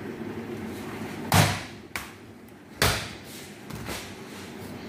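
Kitchen wall cupboard doors being shut: two loud thuds about a second and a half apart, with a lighter click between them.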